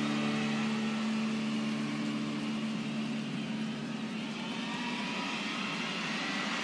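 Concert crowd cheering in an even wash of noise as the song's last held chord fades out over the first couple of seconds.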